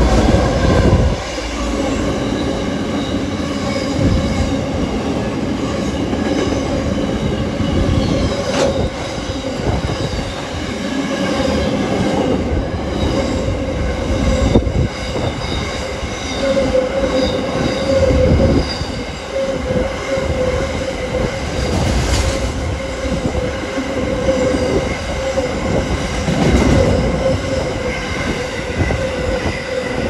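A Qube diesel freight train passing close by: the locomotives go past loudly in the first second, then a long line of container wagons rumbles past. The wheels give a steady squeal throughout, with a few sharp clicks over the rail joints.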